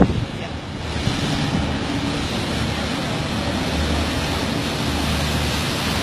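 Wind rushing on the microphone over the low, steady drone of a river tour boat's engine and the wash of its wake as it passes close below.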